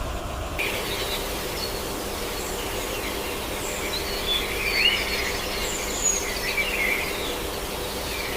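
Small birds chirping and calling, with short rising and falling notes, over a steady noisy background; the bird calls start abruptly about half a second in.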